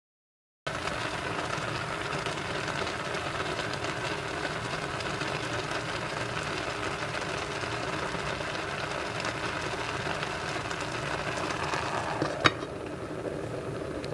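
Rice and water boiling in an Aroma Simply Stainless electric rice cooker, a steady bubbling. Near the end comes a single click, as the glass lid goes back on, and the boiling sounds a little quieter after it.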